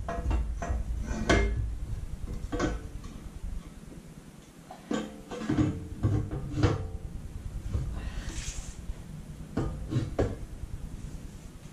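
Metal clanks and knocks of an aftermarket tubular exhaust header being pulled back out of a Honda K24 engine bay, as irregular single knocks with a low rumble in the first few seconds and a short hiss near the end.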